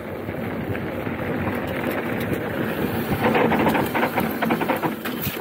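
Hardtail mountain bike rattling down a rough dirt trail: tyres rumbling over the ground with frame and chain clattering, and wind on the microphone. The clatter is heaviest about three to four seconds in.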